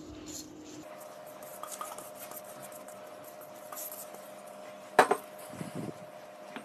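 A thin metal spoon stirring flour into a wet mixture in a glass bowl, with faint light ticks and one sharp clink of the spoon against the glass about five seconds in.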